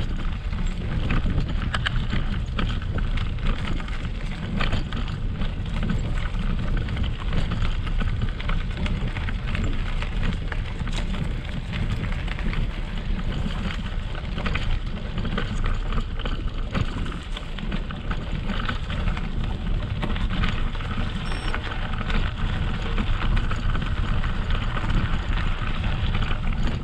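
Mountain bike rolling over a dirt and gravel track, its tyres crunching and crackling over stones and twigs with many small clicks. A constant low rumble comes from the bumps carried through the handlebar-mounted camera.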